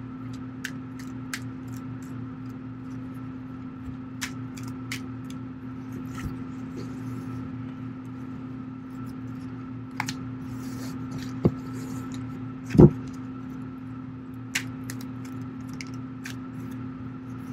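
Tarot cards being shuffled by hand and spread out on a cloth-covered table: scattered light card clicks and snaps over a steady electrical hum, with one louder thump about thirteen seconds in.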